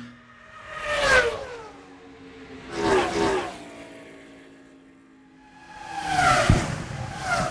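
Three pass-by sound effects sweeping across the surround channels, each swelling to a peak and dropping in pitch as it goes by, like a fast vehicle passing. A low thud lands with the third pass near the end.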